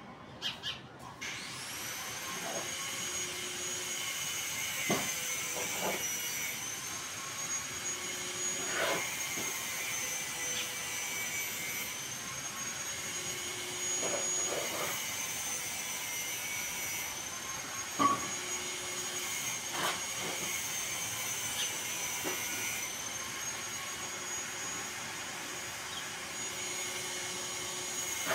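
A high-speed electric motor, such as a power tool's, whining up to speed about a second in and then running steadily, its pitch dipping slightly a few times, with a few scattered knocks.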